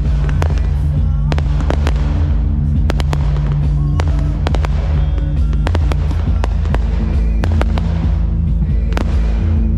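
Fireworks going off in quick succession, many sharp bangs and crackles, over loud music with a heavy bass line from the pyromusical soundtrack.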